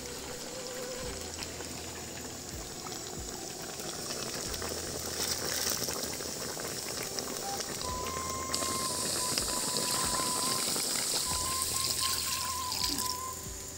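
Chicken rendang cooking in a wok over a wood fire: a steady bubbling, sizzling hiss that grows louder about halfway through.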